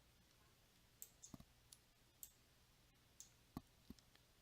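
Near silence with about eight faint, short clicks spaced irregularly through it.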